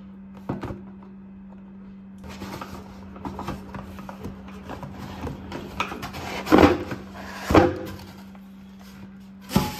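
A cardboard appliance box being pulled open by hand: rustling and scraping of cardboard flaps and inner packing, with three loud knocks in the second half as the box is handled. A steady low hum runs underneath.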